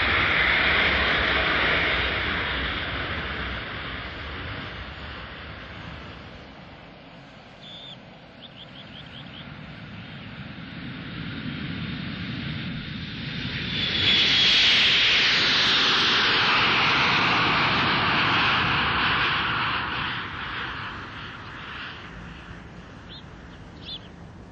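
Jet airliners passing low overhead, twice. The first jet roar is loudest about a second in and fades away. From about 14 seconds a second, louder jet roar sets in with a high whine, holds for several seconds, then dies down near the end.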